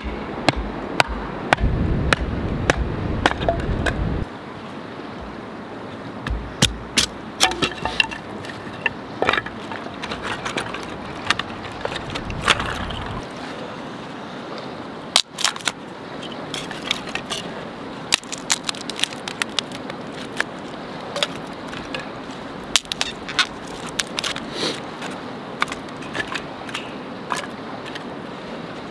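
Kindling being split with a knife: a string of sharp knocks as the knife is struck through a board, then cracks and snaps as thin strips of wood are split off. A steady rush of river water runs behind.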